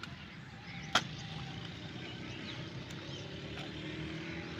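Hand hoe digging into wet mud of a field bund, with one sharp knock about a second in, over a steady low rumble.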